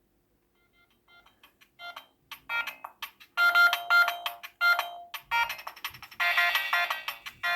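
A mobile phone's ringtone for an incoming call: a melodic tune of short chiming notes that starts faintly about a second in and swells to full volume over the next few seconds.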